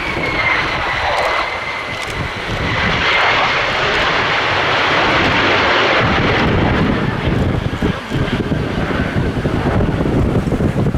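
Jet noise from an F-35A Lightning II's single F135 turbofan: a loud steady roar with a high whine that slowly drops in pitch and fades. Over the second half the low end turns choppy with wind buffeting the microphone.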